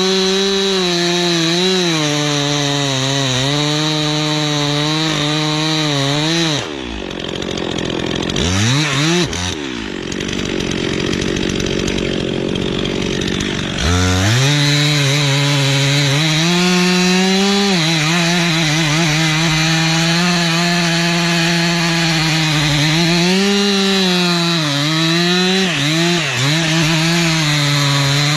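Chainsaw running at high revs, cutting into a large tree trunk. About a third of the way in, its pitch drops and it runs lower and rougher for around seven seconds. It then climbs back to full revs and keeps cutting, wavering with the load.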